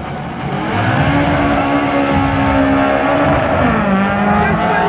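Drag car engine under full acceleration, its pitch climbing hard from about a second in and then dropping sharply at a gear shift near four seconds, before climbing again.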